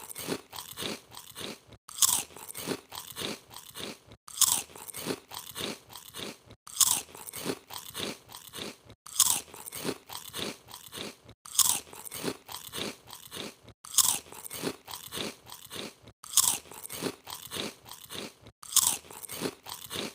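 Someone biting into crunchy chips and chewing them. A loud crisp bite is followed by several smaller chewing crunches, and the same cycle repeats about every two and a half seconds.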